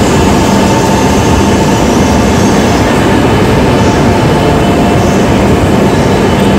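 E5 series Shinkansen pulling slowly out past the platform: a steady, even rumble with a faint low hum running through it.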